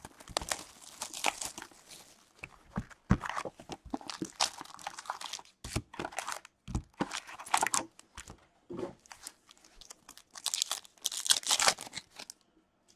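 An Upper Deck hockey card box and its packs being torn open by hand: cardboard and wrapper ripping and crinkling in irregular bursts with short pauses.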